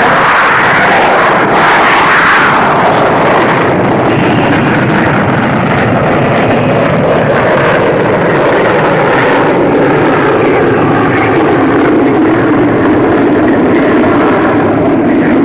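Rocket engines firing at liftoff: a loud, steady rushing noise.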